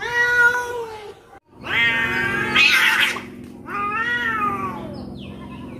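Domestic cats in a fight standoff, caterwauling: long drawn-out threat yowls, three in a row. The middle one is harsher and noisier and the last falls in pitch.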